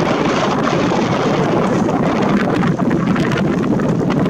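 Wind buffeting a camera microphone that has no foam windscreen, a loud steady rumble and rush that covers everything else.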